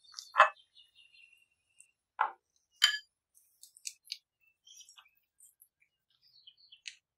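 Silicone spatula stirring softened butter into a runny dough in a glass bowl: three louder clinks against the bowl in the first three seconds, then fainter scattered ticks.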